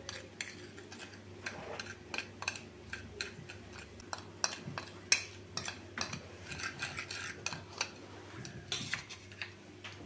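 Metal spoon stirring powdered sugar and cinnamon in a glass bowl, with irregular clinks and scrapes of the spoon against the glass.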